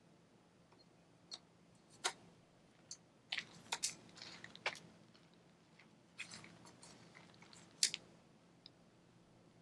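Scattered clicks and knocks from a kayak paddle being handled, busiest in two clusters around the middle, with a sharp knock about two seconds in and another near eight seconds.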